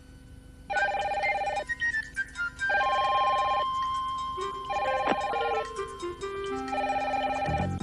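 Desk telephone ringing four times, each ring about a second long with about a second's gap between, over light background music.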